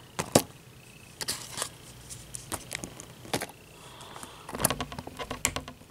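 Plastic Littlest Pet Shop figurines clicking and knocking as they are handled and set down on a hard surface: a string of irregular sharp taps, the loudest just after the start.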